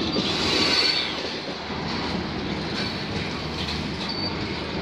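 Cars of a passing freight train rolling by, a center-beam flatcar then covered hoppers: steady noise of steel wheels running on the rails, with a few brief faint high wheel squeals.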